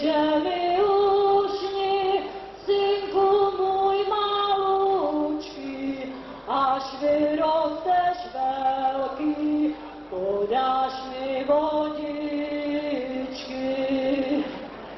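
A woman singing a slow melody into a microphone, holding long notes that step up and down in pitch, with brief breaks about six and ten seconds in.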